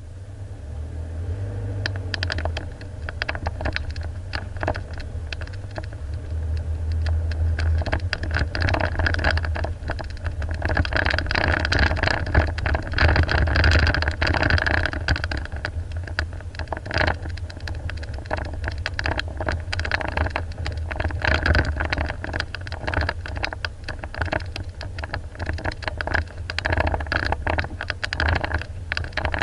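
An off-road vehicle driving over a rough track: a low engine rumble under constant rattling and clattering as it jolts over bumps.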